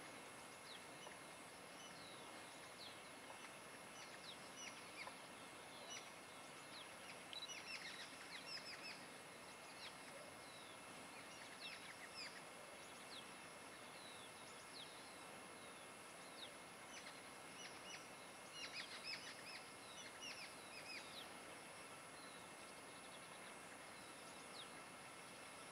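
Faint birdsong: clusters of short, quick downward chirps over a steady background hiss with a constant high, thin whine.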